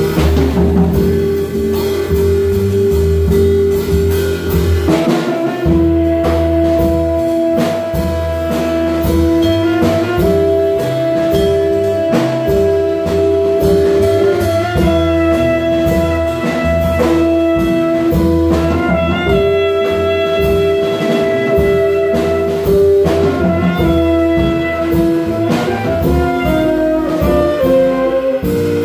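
Live jazz quintet playing: tenor and alto saxophones holding long notes together over upright bass, hollow-body electric guitar and drum kit.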